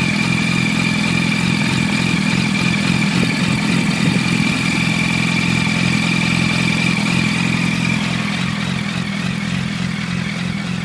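2006 Yamaha R1 inline-four idling steadily through an Arata full titanium exhaust as it warms up, with a steady high whine above the exhaust note. It gets a little quieter near the end.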